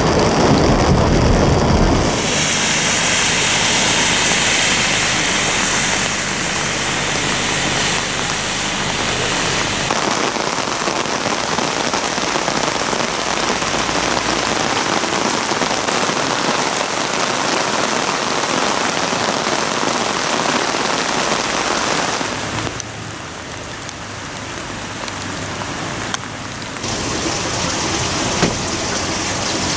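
Heavy rain falling: a steady, even hiss of downpour that changes in tone at several cuts. For the first couple of seconds it is heard from inside a car, rain drumming on the windshield over a low cabin rumble.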